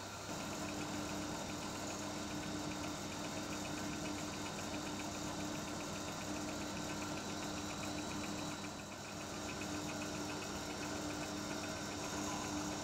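Emco Unimat 3 mini lathe running, driven by a bench-drill motor through a urethane belt, while turning a small brass bolt: a steady hum with a fast, even ticking over it.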